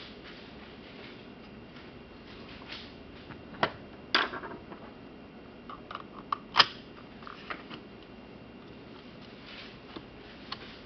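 Scattered sharp clicks and taps of a screwdriver and fingers against the plastic case and circuit board of an Aqua Medic Reefdoser dosing pump. The loudest click comes about two thirds of the way through, over a low room hiss.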